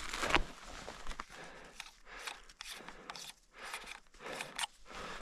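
Footsteps crunching in snow, a steady walking rhythm of about three steps every two seconds.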